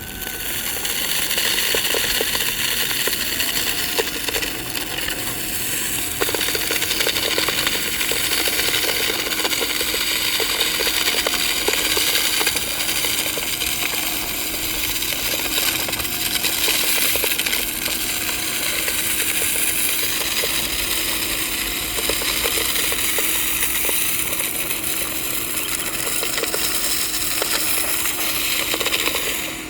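Haimeec cordless stick vacuum's motor running with a steady whine while sand grains click and rattle up through it. The vacuum has barely any suction, its filter clogged with sand.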